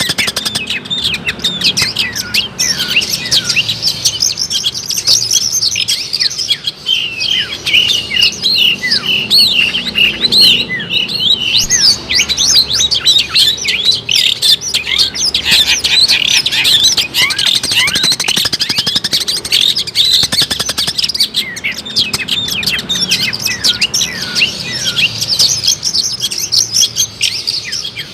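Long-tailed shrike (cendet) singing a fast, continuous chattering song of rapid short notes, many of them quick downward sweeps.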